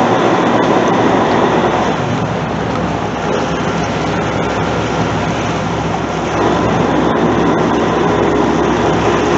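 Sportfishing boat's engines running with a steady low hum under water rushing along the hull. The sound gets a little louder about six seconds in.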